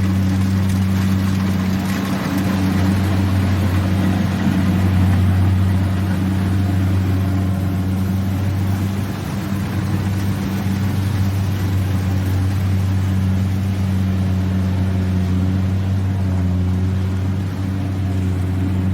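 Rice harvester's engine running steadily at a constant low hum, with a wash of machinery noise over it.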